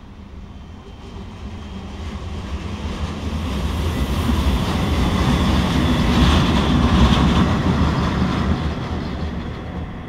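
Two coupled ÖBB electric locomotives running light past the track, led by a Taurus (class 1116). Their wheels and running gear rumble, growing louder, loudest about six to seven seconds in as they pass close by, then fading away.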